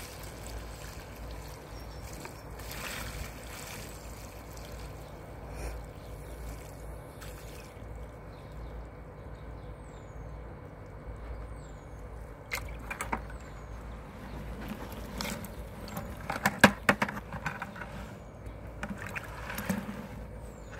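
Muddy water being poured off the rim of a plastic bucket onto grass, a faint trickle and slosh over a steady low rumble. Sharp clicks and knocks come in two clusters, the loudest about two-thirds of the way through.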